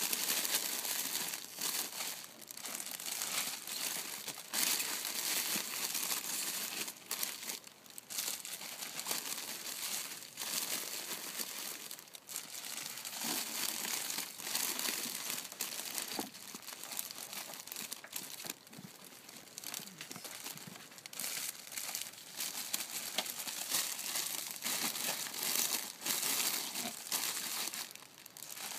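Clear plastic sleeves around bunches of hydrangeas crinkling and rustling on and off as they are handled and packed into a cardboard box.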